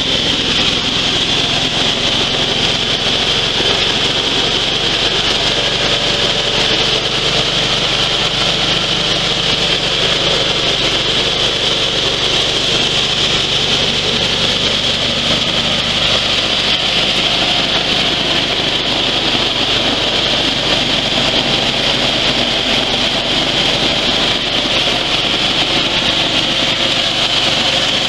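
Dry coffee huller running steadily while hulling dried coffee beans: a continuous, even machine drone with no change in pace.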